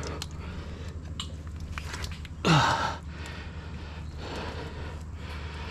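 A man's short grunt or exhale, falling in pitch, about two and a half seconds in, over a steady low rumble and a few faint clicks.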